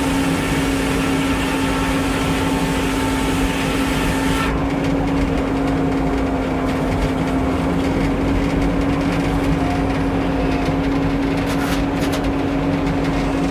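An engine running steadily at an even speed, with a hiss over it that cuts off suddenly about four and a half seconds in.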